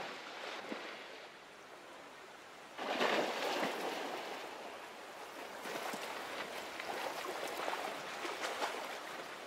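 Heavy water splashing as a grizzly bear bounds through a shallow river chasing salmon, over the rush of the stream; the splashing grows suddenly louder about three seconds in and stays uneven.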